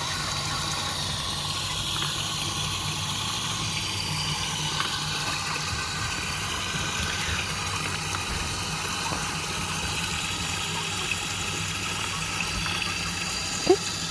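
Water running steadily from a hose, filling a container, with a faint low hum under it. A short sharp sound comes near the end.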